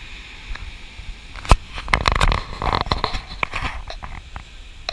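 Handling knocks and rustling on a hand-held camera, with a low wind rumble on the microphone; one sharp knock about a second and a half in.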